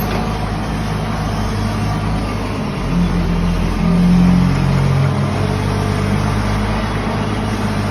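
Engine of the heavy equipment moving an asphalt zipper, running steadily and revving up briefly about three to four seconds in before settling back.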